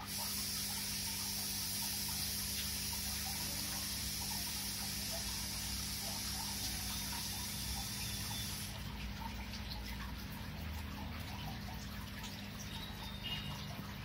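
Aquarium water bubbling and trickling, with air bubbles rising through the tank over a steady low hum. A bright hiss in the mix stops abruptly about nine seconds in.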